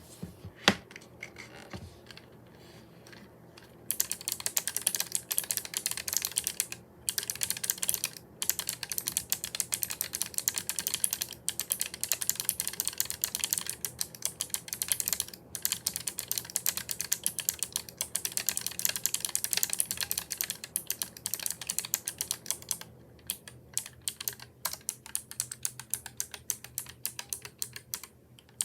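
Fast typing on a Keychron K1 low-profile mechanical keyboard with clicky blue switches, a quick run of sharp key clicks. A single louder knock comes about a second in; the typing starts about four seconds in, with brief pauses, and grows sparser near the end.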